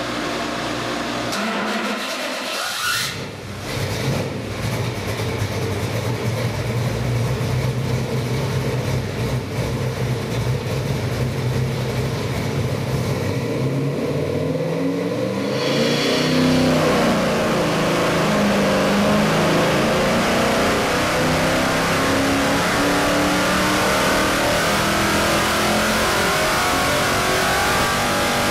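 Carbureted Chrysler 360 small-block V8 stroked to 408 cubic inches, running on an engine dynamometer. It holds steady at about 2,000 rpm, then about sixteen seconds in goes to full throttle and climbs steadily in pitch through a wide-open-throttle pull to about 5,700 rpm, making around 485 horsepower.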